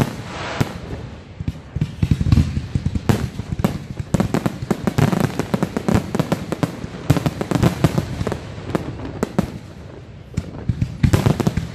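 Fireworks display: many aerial shells bursting in rapid, overlapping bangs and crackles, several a second, without a pause.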